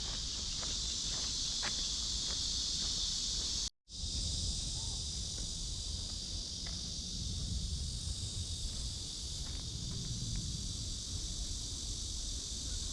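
Cicadas singing in chorus, a continuous high buzz, with footsteps on a path in the first few seconds. The sound cuts out completely for a moment about four seconds in.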